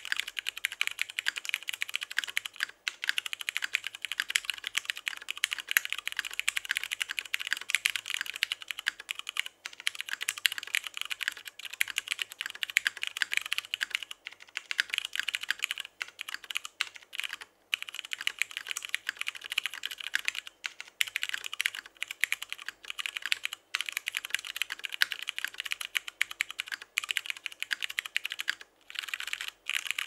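Fast, continuous typing on a Kage SE mechanical keyboard with stock Cherry MX Hyperglide Brown tactile switches, an aluminum plate, O-ring mounting and PBT keycaps: a dense run of keystroke clicks broken by short pauses every few seconds.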